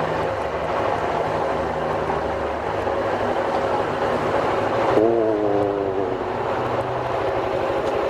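Suzuki Skywave 400 scooter's single-cylinder engine running steadily at riding speed, with wind and road noise, through a short tunnel. A brief voice-like sound rises over it about five seconds in.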